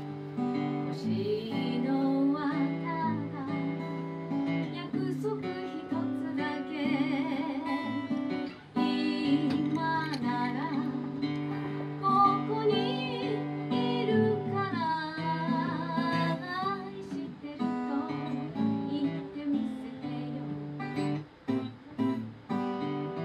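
A woman singing with vibrato over a strummed acoustic guitar. Her voice stops about three-quarters of the way through and the guitar plays on alone.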